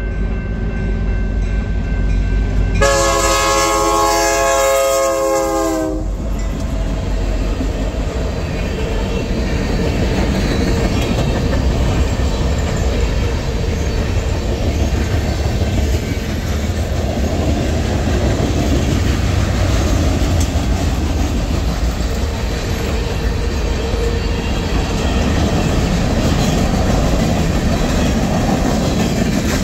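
Train passing close by: the locomotive's multi-tone horn sounds one chord for about three seconds, then a steady loud rumble of wheels and cars on the rails.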